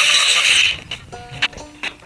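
A loud hiss cuts off abruptly under a second in and gives way to quieter music of short plucked notes, with a couple of sharp clicks.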